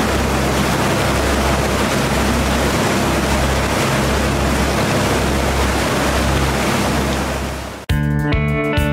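Boat under way: a steady engine drone under the rush of the wake and wind. It fades out near the end, and guitar music comes in.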